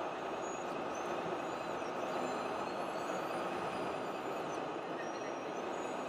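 Radio-controlled model trucks driving: thin high whines that rise and fall in pitch as the models speed up and slow down, over a steady even din.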